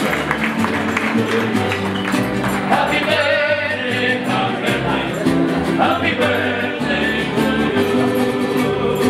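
Mariachi band playing, with the guitarrón's deep bass notes under strummed guitars, and a voice singing with wavering vibrato.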